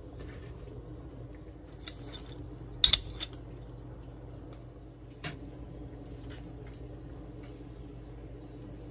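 A pot of ramyeon boiling, with a steady low background, while metal utensils clink against the stainless steel pot a few times; the loudest is a quick double clink about three seconds in.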